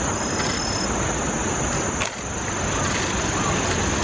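A steady, high-pitched insect trill over a constant low rushing noise, with a brief click about halfway through.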